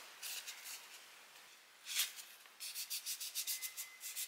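Fingers rubbing painter's tape down onto a stuffed fabric candy corn: a faint swish about two seconds in, then a run of quick, light rubbing strokes near the end.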